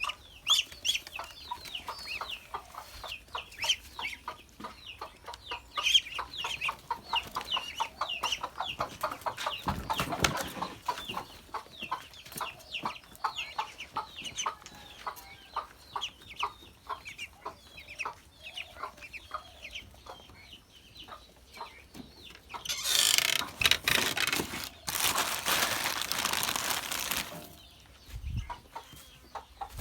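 A flock of ducks calling with many short, rapid calls. About 23 seconds in there is a stretch of loud rustling noise, with a couple of low thumps elsewhere.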